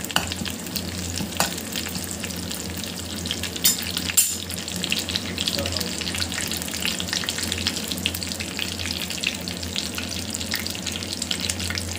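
Mustard seeds and curry leaves sizzling and crackling in hot desi ghee in a steel kadhai, the tempering (tadka) being left to splutter, with a few louder clicks about four seconds in.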